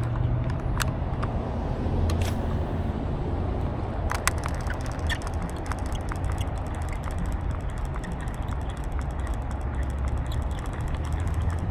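St. Croix Fishing Machine spincast reel being cranked, its gears giving a rapid fine ticking that sets in a few seconds in, over a steady low rumble.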